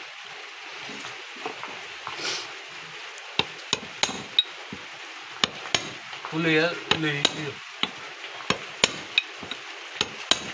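Hammer tapping a chisel to drive an old oil seal out of a power tiller's rotary-shaft bearing housing: sharp metal-on-metal taps at an uneven pace, starting about three seconds in.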